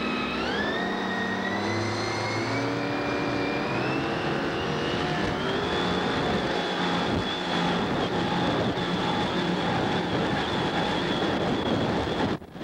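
454 Chevy big-block V8 with open Bassett headers, driving a wooden flatbottom drag boat through a V-drive at speed: the engine pitch climbs over the first few seconds, then holds steady at high revs. The sound cuts out briefly near the end.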